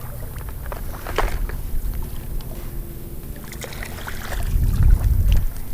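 Water sloshing around legs wading in a river, with a low rumble that swells about four and a half seconds in and scattered small splashes and clicks.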